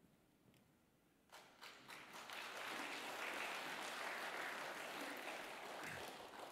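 Audience applauding: a few scattered claps about a second in swell into full applause, which then tapers off near the end.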